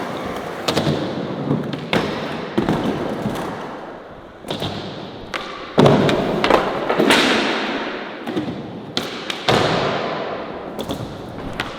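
Skateboards rolling, with a string of sharp board impacts (tails popping, wheels landing, decks slapping down), the loudest about six seconds in.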